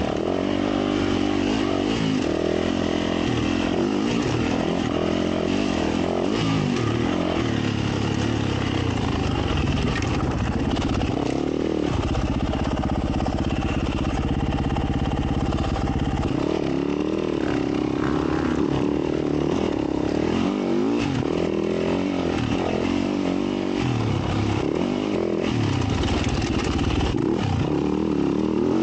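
Yamaha YZ450F dirt bike's single-cylinder four-stroke engine revving up and down under changing throttle while being ridden, with a few seconds of steadier revs near the middle.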